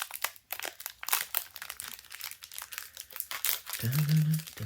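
Trading-card booster pack wrappers crinkling and tearing as packs are opened, in rapid crackly bursts. A short hummed voice sounds near the end.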